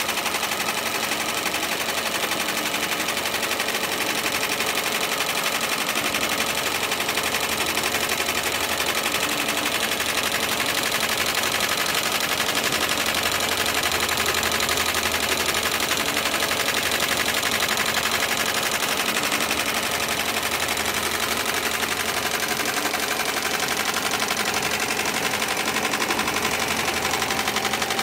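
JUKI PLK-G2008H programmable pattern sewing machine running at speed, its needle making a steady run of rapid strokes as it stitches thick webbing for a lifting sling.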